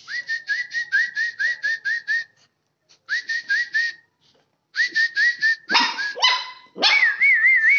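Puppies yipping: short high-pitched yips at about four a second, in three runs, then a couple of louder yelps and a long wavering whine near the end.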